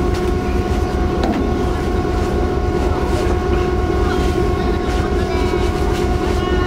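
Steady drone of the icebreaker Aurora's engines and machinery: a low rumble with a few steady humming tones over it.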